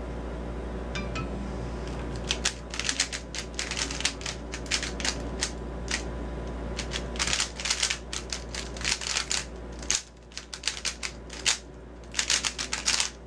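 DaYan 6 PanShi 3x3x3 speedcube being turned fast during a timed solve: rapid runs of plastic clicks and clacks starting about two and a half seconds in, easing off briefly near ten seconds and picking up again near the end, over a steady low hum.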